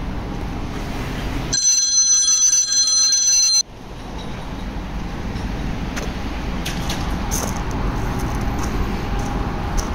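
Steady outdoor background noise, broken about a second and a half in by a loud two-second ringing tone of several steady high pitches that cuts off suddenly.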